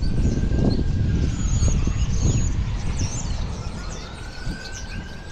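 A flock of small birds chirping from the power lines over a low rumble of street traffic. A distant siren slowly rises and falls in the background.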